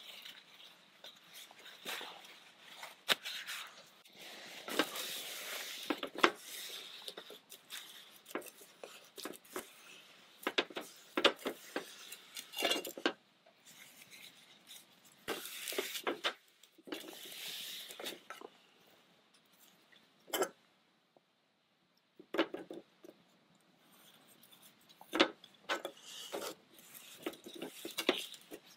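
Paper tissue rustling and rubbing over a metal plate as it is wiped clean, with scattered light knocks of the plate against the wooden table.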